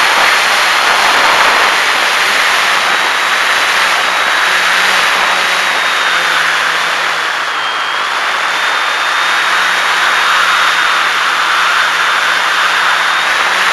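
RC model airplane's motor and propeller in flight, heard from a camera on the plane's nose: a steady high whine over loud rushing air, the whine dipping briefly in pitch a little past halfway.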